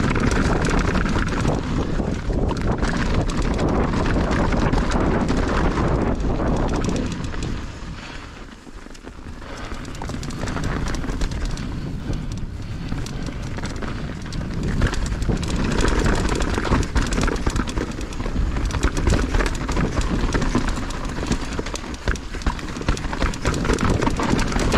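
Mountain bike riding down a dirt trail: tyres on rough ground and the bike clattering and rattling over bumps, with a heavy low rumble on the microphone. It quiets for a few seconds about eight seconds in, then picks up again.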